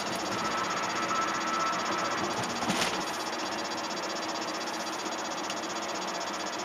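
Steady road and engine noise inside a car's cabin at highway speed, with a single light click a little under three seconds in.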